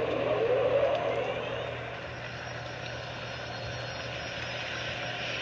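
Spaceship engine sound effect for a starfighter lifting off. It swells to a loud rush in the first second, then settles into a steady engine hum.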